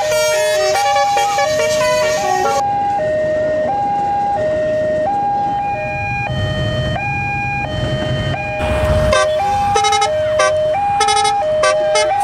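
Railway level crossing warning alarm sounding a steady two-tone hi-lo pattern, the pitch switching about every three quarters of a second. A low rumble swells in the middle and stops suddenly about nine seconds in.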